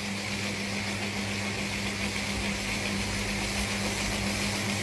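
Electric motor of a bottle-washing machine running with a steady hum, while a bristle brush scrubs a large water-cooler bottle turning in soapy foam.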